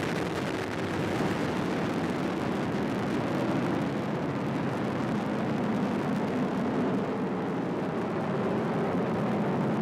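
Atlas V rocket engines running during ascent just after liftoff, a steady, deep rushing noise with no breaks.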